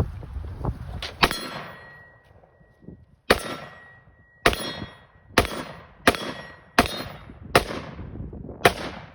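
AR-15-type pistol firing about eight single shots at an uneven pace, roughly a second apart, each shot sharp and loud with an echoing tail.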